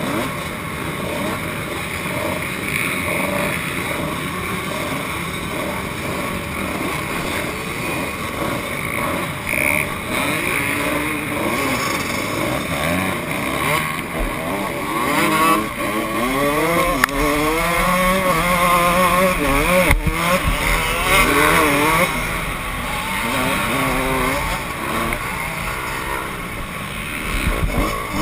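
Kawasaki KX125 two-stroke dirt bike engine with other motocross bikes running around it, first at a steady drone, then from about halfway through revving up and down in repeated rising and falling sweeps as it rides the dirt track. Wind rumbles on the microphone once under way.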